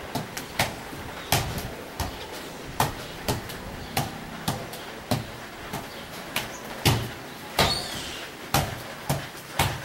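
A football being juggled by a barefoot player: a run of sharp thuds, one or two a second at an uneven pace, as the ball is struck by bare feet, knees and head.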